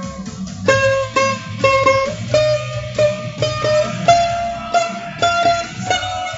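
Guitar picking a slow melody of single plucked notes that step upward in pitch, over a held low bass.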